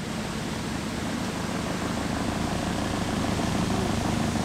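Small outboard motor running steadily, pushing a little fibreglass cruiser along, its drone growing slightly louder.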